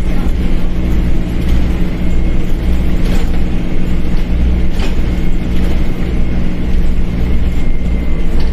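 Dennis Dart single-decker bus running steadily with a deep engine hum, with two short knocks or rattles about three and five seconds in.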